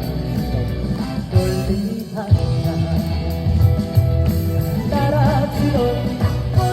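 Trot song performed live over a loud band backing track with a steady beat, with a voice singing a wavering melodic line near the end.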